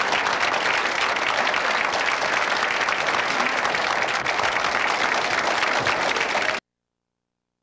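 Studio audience applauding, a steady, dense clapping that cuts off abruptly about six and a half seconds in.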